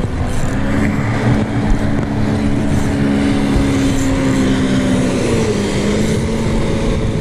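A motor engine droning steadily over a low rumble, its hum dropping in pitch about five seconds in.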